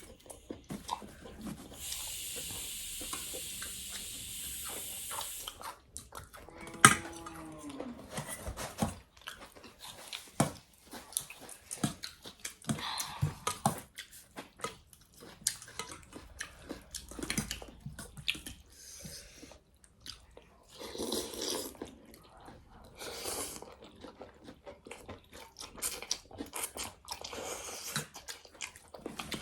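Close-up chewing and mouth sounds of people eating thukpa noodle soup, with many short irregular clicks. A steady hiss sets in about two seconds in and lasts some three seconds, and a sharp loud click comes near the seven-second mark.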